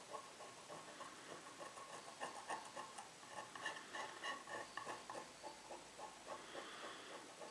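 Bristle brush dabbing and scrubbing a thick glue-based ground onto a wooden panel in quick, short strokes: a faint, fast, irregular patter of soft ticks.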